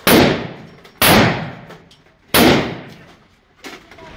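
Handgun fired on an indoor range: three shots about a second apart, each with a long echo off the range walls, and a fourth right at the end.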